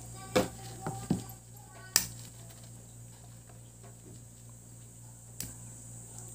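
Sharp clicks and knocks from handling a CRT TV's neck board while its tube socket is desoldered, several in the first two seconds and one more near the end, over a steady low hum.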